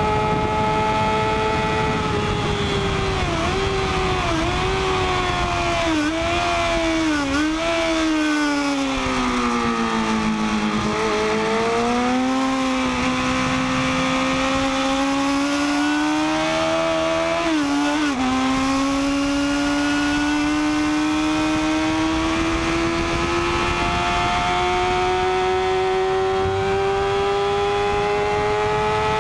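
Onboard sound of a Triumph Daytona 675's three-cylinder engine on a wet track, under a constant rush of wind. Its pitch dips and falls through a series of downshifts over the first ten seconds, then rises slowly and steadily under throttle, with one quick gear change about two-thirds of the way through.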